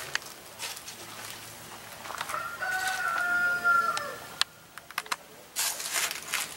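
A rooster crowing once, about two seconds in: a single long held call that falls away at the end. A few sharp clicks and a rustling noise follow.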